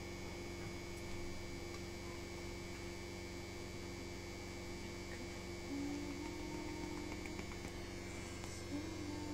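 Steady electrical hum with a thin higher whine above it.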